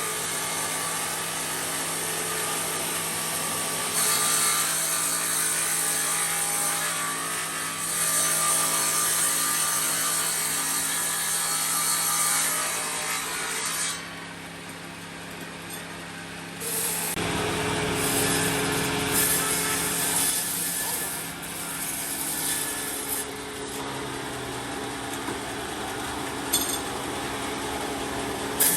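Sawmill saw running and cutting through wood, a steady machine hum under a harsh cutting noise. It drops away about halfway through, then comes back deeper and heavier a few seconds later.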